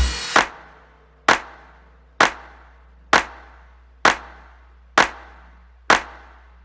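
Seven sharp, evenly spaced percussive hits, a little under one a second, each ringing out briefly over a faint low hum: a sparse break in the electronic background music.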